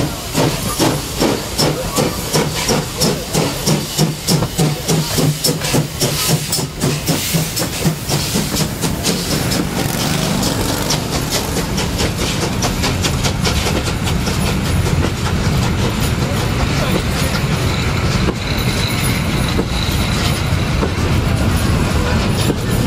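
Steam locomotive working hard as it gathers speed past, its exhaust chuffs coming quicker over the first several seconds. Then its passenger carriages roll by close up with a steady rumble and wheel clatter.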